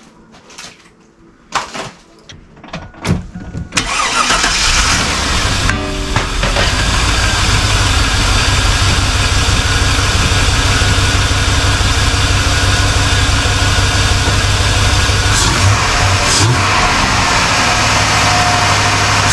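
A few clicks, then about four seconds in the 2000 Chevy Silverado 2500's LQ4 6.0 L iron-block V8 starts and settles into a steady idle, on its first start with a freshly fitted aftermarket cold air intake.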